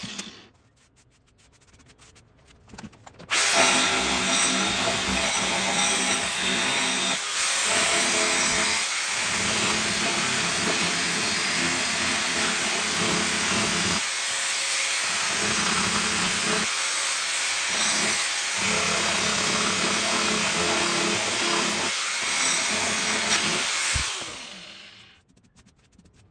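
Angle grinder with an abrasive sanding head grinding and smoothing a carved hollow in a wooden slab. It winds down at the very start, starts suddenly about three seconds in, and runs loud with its sound dropping briefly several times. It winds down near the end.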